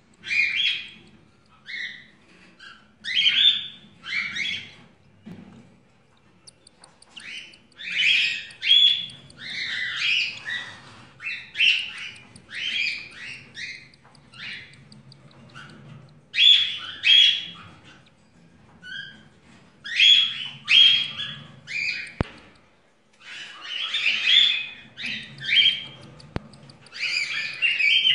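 Cockatiel chicks giving rasping begging calls in repeated short bursts while their mother feeds them by regurgitation. The calls become nearly continuous near the end.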